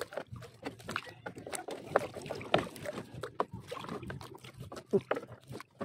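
Irregular splashing and sloshing of seawater, with sharp knocks, as a fishing net is laid out by hand; the loudest splashes come about two seconds in, again half a second later, and near the end.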